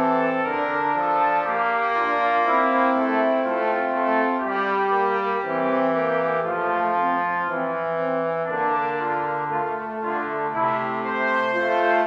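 Background music played by brass instruments, slow held notes in several parts at once.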